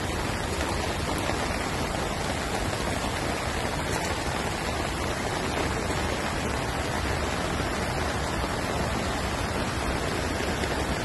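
Heavy rain falling: a steady, even rush of noise with no distinct drops or impacts.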